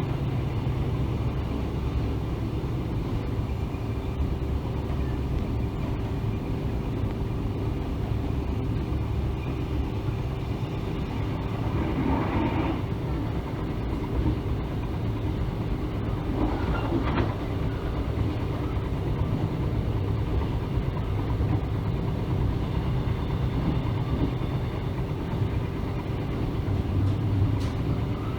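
Mugunghwa-ho passenger train running along the track: a steady low rumble with a constant hum, and two brief louder sounds about twelve and seventeen seconds in.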